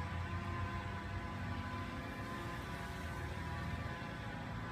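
A small motor running steadily, an even hum that does not change.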